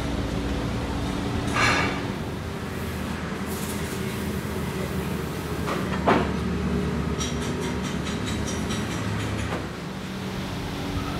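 Steady hum and rumble of workshop machinery running, with a sharp metal clank about six seconds in as a steel tube is handled, and a softer knock near two seconds.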